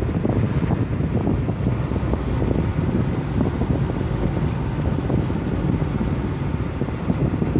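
Wind buffeting the microphone over the steady rumble of a moving car.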